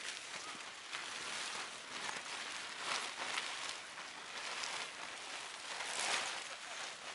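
Tent fabric rustling and swishing as the fly is pulled and draped over the tent, with louder swells about three and six seconds in.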